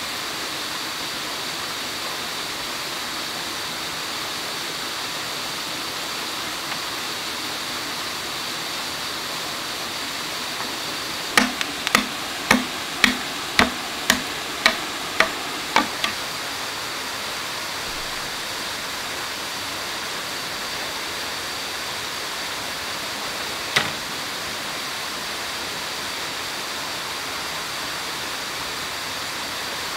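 Steady rush of a small waterfall and stream over rocks. Roughly midway comes a run of about ten sharp knocks, about two a second, and a single knock follows some seconds later.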